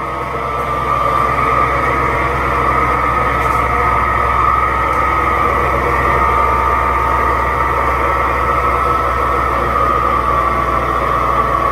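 Kenmore Elite Quietpak 9 HE5t front-load washing machine in its spin cycle, running loud and steady with a deep hum under a high whine, growing louder in the first second or two. The noise is the sign of failing drum bearings.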